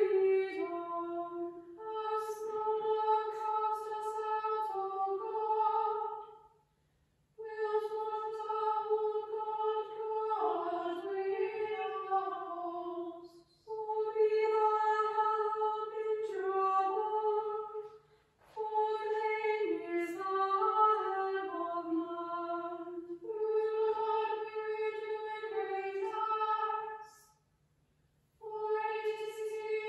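Small choir of female voices singing together in several sung phrases of a few seconds each, with short pauses for breath between them.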